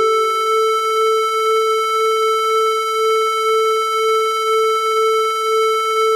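Yamaha CS01 analog monosynth holding one long steady note in the upper-middle register, played through a tape echo, with a gentle regular pulse in loudness about twice a second.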